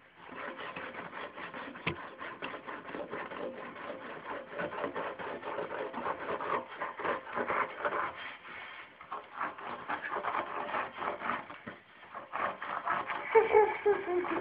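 Handling noise from a phone held against a sleeve: fabric rubbing and scratching over the microphone, with many small irregular clicks and knocks.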